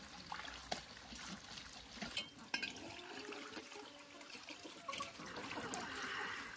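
Water running from a garden hose into a steel bowl and splashing over the hands washing it, with a few light clinks of the metal bowl. The splashing grows a little louder near the end.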